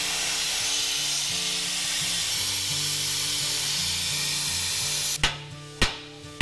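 Plasma cutter hissing steadily as it cuts a notch through a steel truck frame rail; the hiss cuts off about five seconds in. Sharp knocks follow, about one every 0.6 s.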